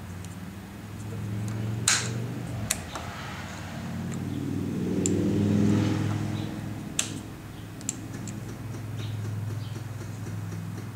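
A 2009 Honda CBR600RR's engine turning over on its starter without catching, a steady mechanical hum that swells twice, with a few sharp clicks.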